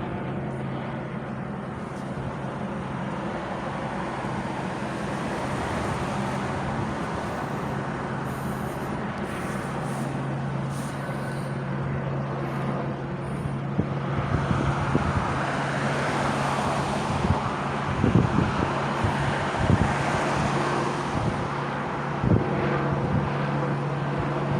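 Street traffic noise over a steady low engine hum. The noise of a vehicle swells for several seconds past the middle, with a few thumps near the end.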